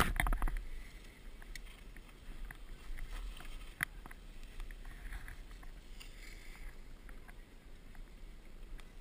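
Skis scraping and hissing over chopped-up packed snow while skiing downhill, with a low wind rumble on a GoPro's microphone. A louder rush in the first half-second and a few sharp clicks.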